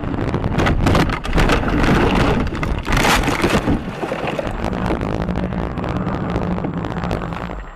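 A car running off the road across dirt and grass: heavy jolting and rattling of the body, with dirt and gravel pattering against it. A loud burst comes about three seconds in, then a steady hum, and the noise stops abruptly near the end.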